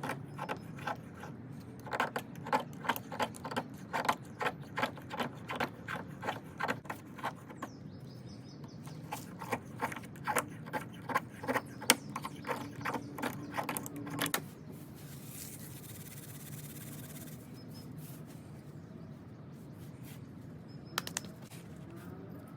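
Small stainless pocketknife blade whittling shavings off a piece of dry tulip poplar, a rapid series of short scraping strokes about two a second, with a short pause midway. The strokes stop and a steady hiss follows for a few seconds.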